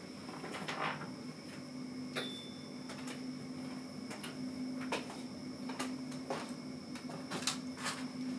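Scattered light knocks and clicks of a person getting up and moving about at a desk, over a steady low hum.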